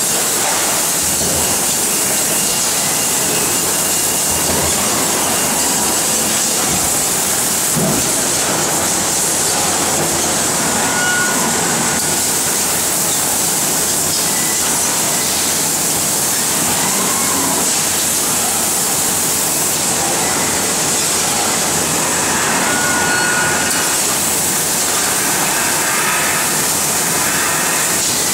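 Steady machine-shop noise from a robotic sheet-metal sorting cell: a continuous loud hiss of running machinery, with faint whines that rise and fall now and then and two brief high whistles.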